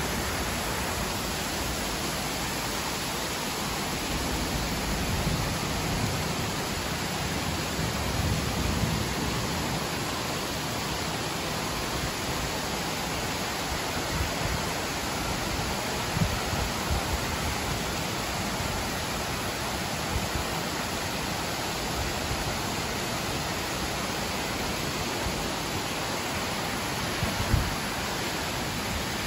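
Steady rain falling, an even hiss of water. It is broken by a few short low thuds, the loudest about halfway through and another near the end.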